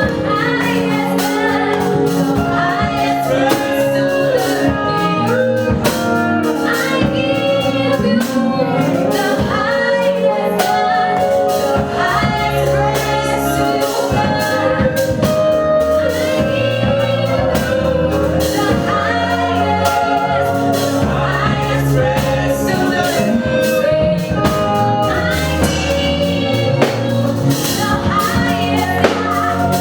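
Gospel worship song: voices singing a melody over a band, with steady drum beats and sustained chords throughout.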